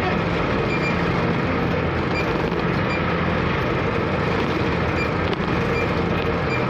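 Car ferry's engine running steadily, a constant low hum under an even rushing noise.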